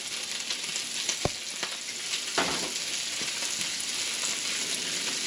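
Shredded chicken frying in hot oil: a steady sizzle with light crackles, and two short knocks from a utensil, about a second and two and a half seconds in.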